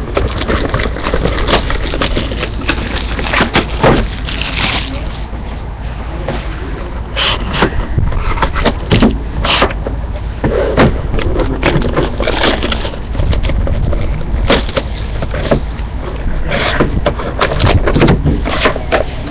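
Handling of a sealed trading-card box: plastic wrap crinkling and tearing, the cardboard box opened, and foil-wrapped card packs pulled out and set down on a table. Irregular crackles, scrapes and sharp clicks come throughout.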